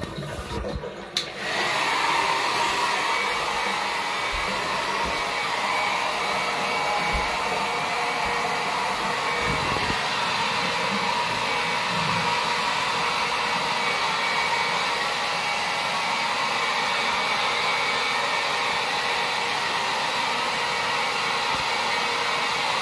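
Handheld electric hair dryer switched on about a second in, then blowing steadily.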